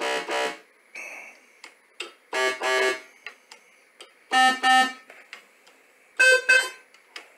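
Korg Mini Korg K1 analogue synthesizer sounding short pairs of repeated notes, each pair on a different pitch and rich in overtones, about every two seconds. Light clicks from the keys and controls fall between the notes.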